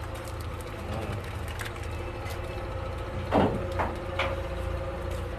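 An engine or similar machine running with a steady low hum, with a short louder noise about three and a half seconds in.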